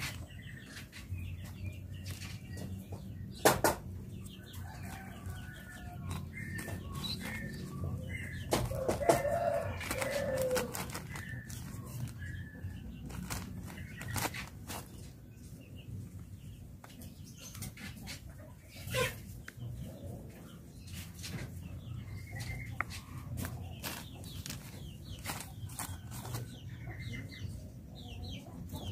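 Chickens clucking, with a longer call about nine seconds in, over a low steady hum. Scattered sharp clicks and knocks run throughout, the loudest a knock about three and a half seconds in.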